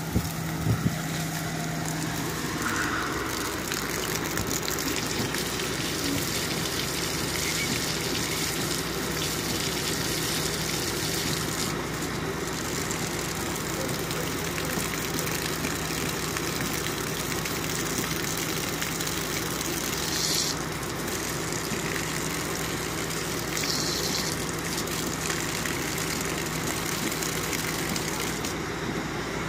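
Garden hose spraying water, a steady hiss, over the low running of the Lincoln Town Car's 4.6-litre V8 idling.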